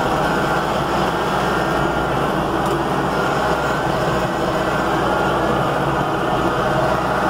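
A motor vehicle's engine running steadily as it drives along, with a constant low hum and dense running noise.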